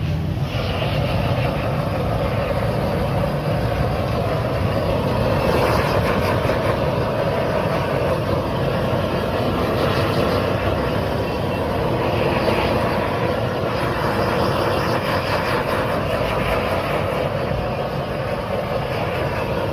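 Handheld gas blowtorch burning with a steady rushing hiss, its flame played over cheese-topped pizzas in clay cups.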